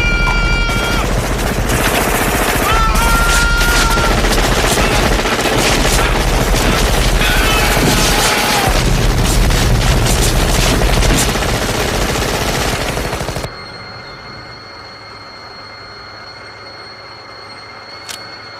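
Sustained heavy automatic gunfire, dense and continuous, shredding jungle trees. It stops abruptly about thirteen seconds in, leaving a much quieter steady background with a thin high tone.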